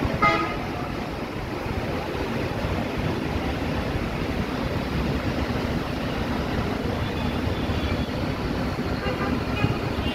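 Street traffic on a wet road: a steady low rumble of buses and vehicles, with a short vehicle horn toot just after the start.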